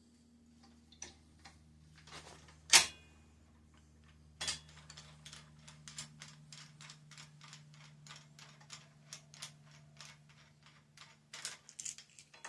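Bicycle headset cup press being wound down to seat the headset cups: a sharp metallic click about three seconds in, another about a second and a half later, then a steady run of light clicks about three a second as the press turns and the cups go in easily.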